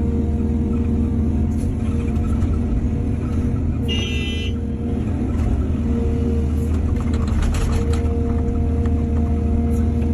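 Heavy diesel engine of an excavator running steadily, a low drone under the work of loading soil, with a short high-pitched tone about four seconds in.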